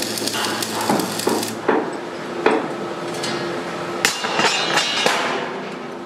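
Stick welding on a steel-strip ring: the arc crackles and buzzes for about the first second and a half. Then comes a series of sharp metallic knocks on the steel, some ringing briefly.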